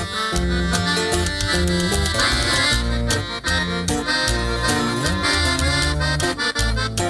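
Piano accordion playing a quick run of melody notes over plucked upright bass and guitar in a norteño trio, an instrumental passage with no singing.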